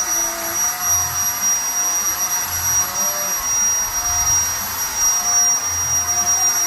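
Zipper electric paint spray gun running steadily: a constant high-pitched motor whine over an airy hiss.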